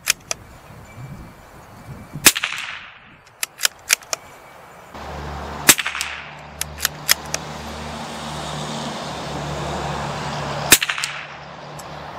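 Three shots from a CZ 457 bolt-action .22 LR rifle, each a sharp crack with a short echo: a couple of seconds in, at about six seconds, and near the end. Lighter clicks of the bolt being worked come between them. A steady low engine hum comes in about five seconds in.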